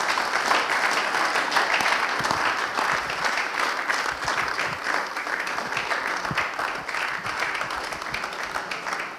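Audience applauding steadily at the end of a poetry recitation, easing off slightly toward the end.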